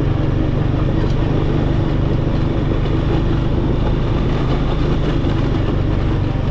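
ATV engine running at a steady, even pitch as the quad is ridden along a grassy track, with no revving or gear changes.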